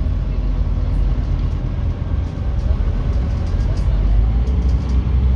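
Scania N270UB OmniCity bus heard from inside the passenger saloon while under way: its five-cylinder diesel engine and the road noise make a steady low drone and rumble.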